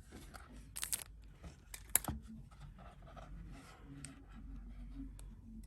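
Small handling sounds of a phone repair: a short scrape about a second in, then a sharp click about two seconds in, as a flex cable connector is unclipped from an iPhone XR, followed by faint scratching.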